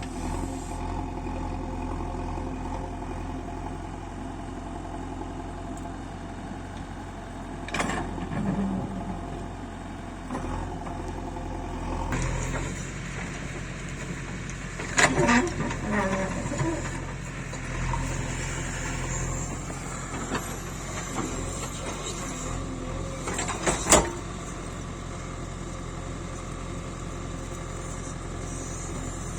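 JCB 3DX backhoe loader's diesel engine running steadily while it works, its note shifting about halfway through. A few sharp metal knocks stand out over it, the loudest near the end.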